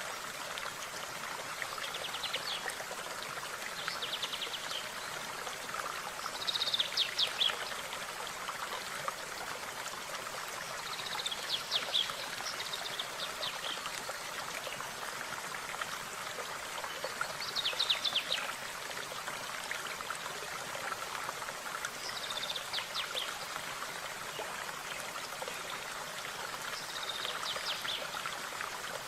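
A stream running steadily, with a songbird singing short phrases of quick high notes every few seconds over it.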